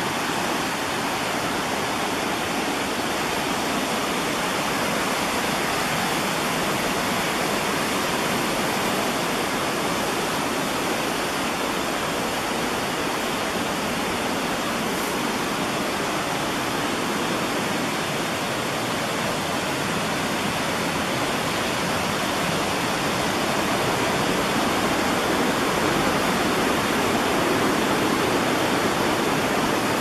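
Creek water pouring over a small waterfall and cascades in a steady, loud rush, swelling slightly in the last few seconds.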